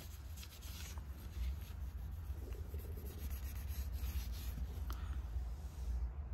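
A microfiber cloth being rubbed over an alloy wheel, wiping off buffing dust in soft, uneven scratchy strokes. A steady low rumble runs underneath.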